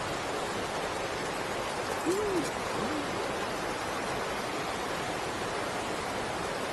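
Steady rush of river water pouring over a weir. About two seconds in, two short, low hoot-like sounds, each rising and falling in pitch, rise above the rush.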